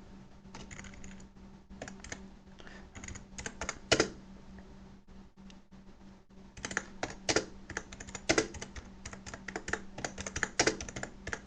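Typing on a computer keyboard: irregular keystroke clicks, sparse at first, then a quicker run of typing from about halfway, over a faint steady hum.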